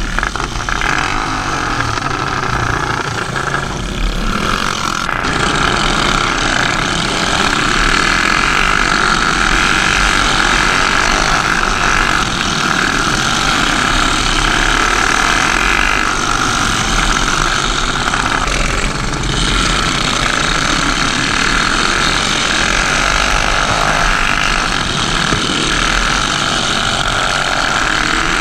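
Racing go-kart engine running hard at speed, heard close up from the kart's onboard camera, with the engines of other karts racing nearby. The sound is loud and steady, with its pitch shifting a little now and then through the turns.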